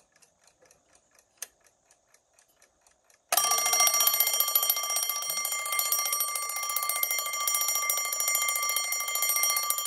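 Westclox Big Ben Loud Alarm wind-up clock ticking faintly, with one sharp click about a second and a half in. About three seconds in, its alarm bell goes off as the hands reach the set time, ringing loud and steady, and it stops right at the end: the alarm works.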